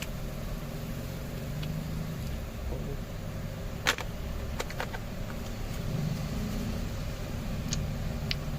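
Steady low background rumble with a few sharp clicks and taps from handling the phone's charger and packaging. The loudest click comes about four seconds in, and there are smaller ones shortly after and near the end.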